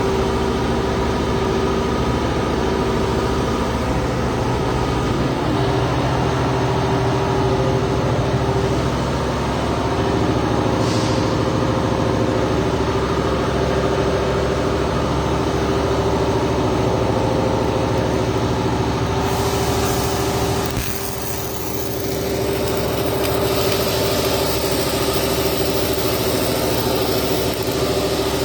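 A machine running steadily with a constant hum. A high hiss joins about two-thirds of the way in, and the sound briefly drops in level a little later.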